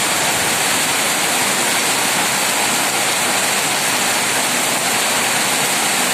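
Heavy rain driven by strong wind: a steady, loud rushing hiss that does not let up.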